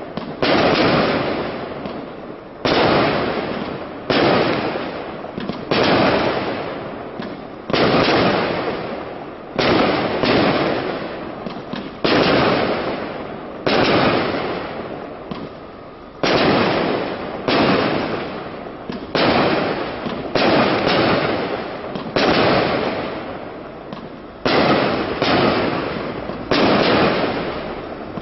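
Aerial firework shells bursting one after another, a sharp bang every second or two, each fading away over about a second before the next.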